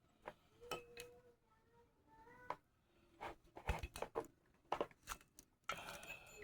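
Faint metal clicks, taps and short squeaks of a socket pressing down a valve spring retainer while the keepers are fitted on a cylinder head, with a run of quick clicks in the second half.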